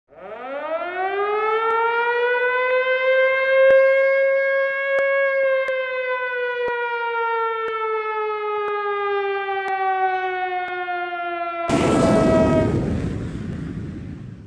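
An air-raid siren winds up over a few seconds, holds its pitch, then slowly winds down. Near the end a loud burst of rushing noise cuts in and fades away.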